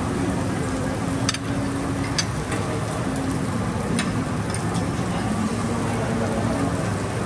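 Steady hiss of food sizzling on a teppanyaki griddle, with a few light metal clicks.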